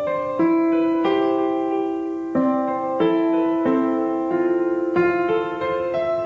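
Background music on a soft piano, slow held notes and chords changing about once a second.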